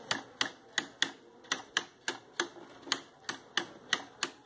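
Rapid, regular clicks, about three or four a second, as a tool is worked across the Indian cane (rattan) strands of a chair seat to push and tap them together.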